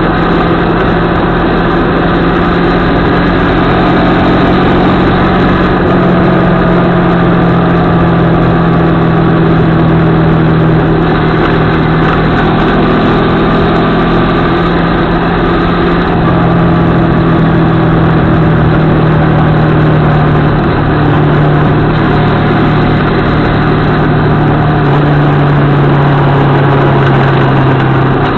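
CFMOTO 650MT motorcycle's parallel-twin engine running under way, its pitch shifting up and down a few times with the throttle. Heavy wind rush is heard over the bike-mounted camera.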